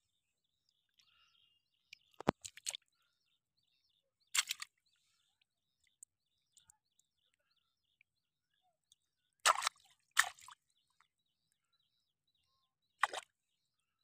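Short, irregular wet squelches and splashes, about six across the span, from a hand pressing into soft mud and shallow water to grab prawns. Faint bird chirps sound between them.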